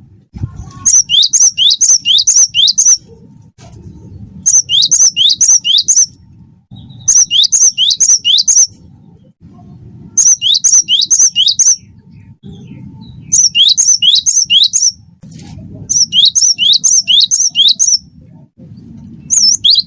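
Cinereous tit (gelatik batu) singing loudly in repeated phrases. Each phrase is five to seven quick identical notes that each drop sharply in pitch, with brief pauses between phrases.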